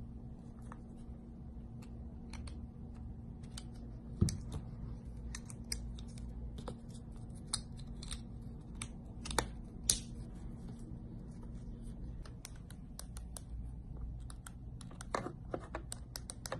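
Irregular small plastic clicks and taps as an Audi flip remote key's plastic shell is assembled by hand: a small screwdriver working a screw, the case parts snapping together, with a few sharper snaps. A faint steady hum runs underneath and stops about three-quarters of the way through.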